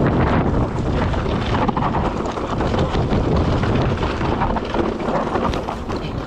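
Mountain bike descending a rocky trail: tyres crunching over loose stones with a constant rattle and clatter of the bike, under heavy wind rumble on the handlebar-mounted microphone.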